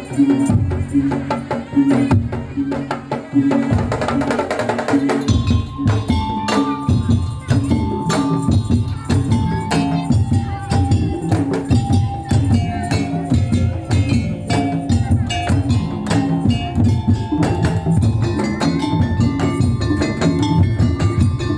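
Madurese daul (tongtong) music: drums and wooden percussion keep a dense, steady rhythm. A melody of stepped pitched notes comes in about five seconds in.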